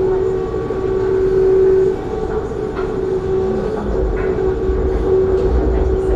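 Elevated metro train running, heard from inside the passenger carriage: a steady whine holding one pitch over the low rumble of the running train. The rumble grows louder about four seconds in.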